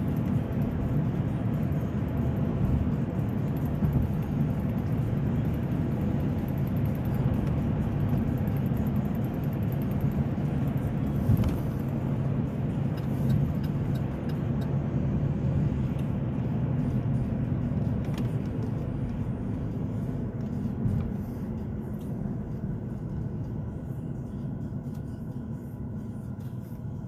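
Road and engine noise inside a moving car's cabin with the windows shut: a steady low rumble, with the air-conditioning fan blowing. It eases off gradually toward the end.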